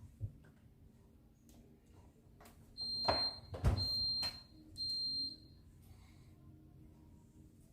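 LG refrigerator's electronic alarm beeping three times in quick succession, short high-pitched beeps about half a second apart, the kind it gives when a door is left open. A couple of dull knocks come with the first beeps.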